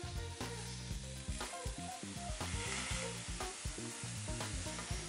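Halved mushrooms and tomatoes sizzling on a lightly oiled flat metal griddle (plancha), a steady hiss with small crackles.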